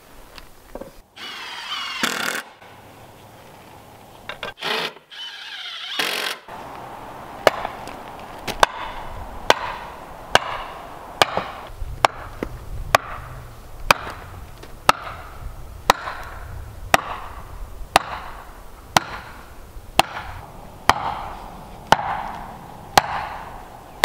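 A wooden stake being driven into hard red clay and shale ground with a hammer: sharp blows about once a second, starting about seven seconds in, the hard ground making each strike ring out. Near the start there are two short whirring bursts.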